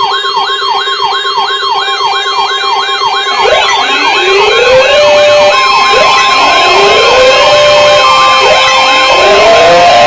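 Several electronic sirens sounding together: a fast warbling yelp from the start, joined about three and a half seconds in by more sirens winding up in rising sweeps, with steady tones held over them.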